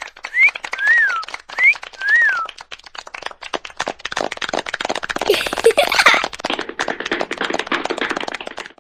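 Crowd applauding, with several short whistles that rise and fall over the first couple of seconds and a brief burst of squealing cheers about five to six seconds in.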